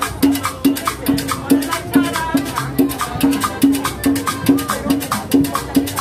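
Live cumbia played by a street combo: drums keeping a steady beat of about two strokes a second, with sharp hand-percussion clicks and an accordion melody over it.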